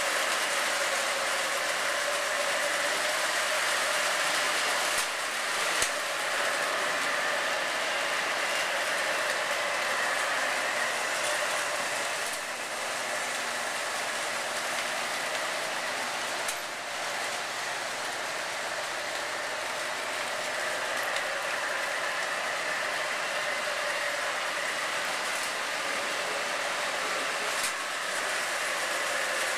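Several O-gauge Lionel and MTH model trains running together on the layout's metal track: a steady whir of motors, gears and wheels on rails, with a faint click now and then.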